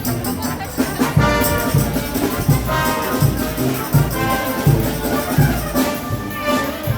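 Frevo orchestra playing live: brass section of trumpets and trombones holding bright phrases over a steady, driving percussion beat.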